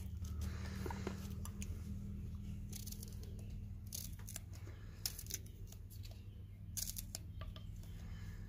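Kitchen knife slicing through fresh green garlic stalks held against the thumb, a short snip with each cut at irregular intervals of a second or so. A steady low hum runs underneath.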